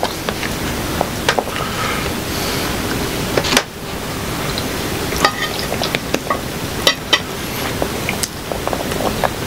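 Metal serving utensils clinking and scraping in a pan of pasta, with scattered sharp clicks over a steady background hiss.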